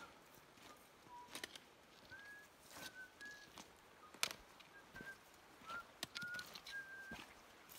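Faint bird calls: a string of short whistled notes, a few slightly rising, coming about once a second. Over them, sharp clicks of trekking-pole tips and boots on a stony trail, the loudest a single click about four seconds in.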